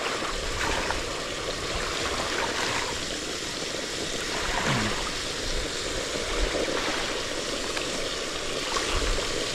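Speckled trout fillets frying in a pan on a portable gas stove: a steady sizzle.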